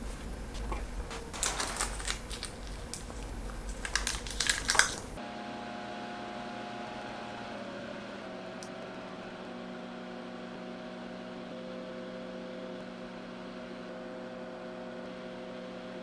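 Irregular small plastic clicks and taps from handling perfboard and snapping small plastic connectors into place. About five seconds in, the sound changes abruptly to a steady hum of several held tones, a few of which shift pitch partway through.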